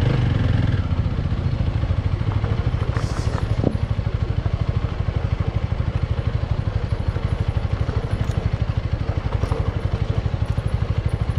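Motorbike engine running steadily with an even, rapid pulse while riding.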